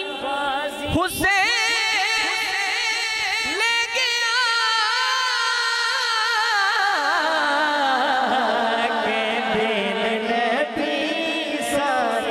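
A man singing a long, drawn-out melismatic line of a Punjabi naat into a microphone over a PA, holding wavering notes with heavy vibrato that glide slowly downward.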